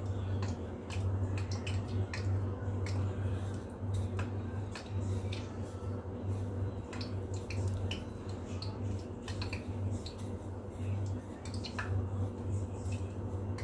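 Scattered light clicks and soft taps of raw dough balls being rolled and coated in sesame seeds on a plate, with a steady low hum running throughout.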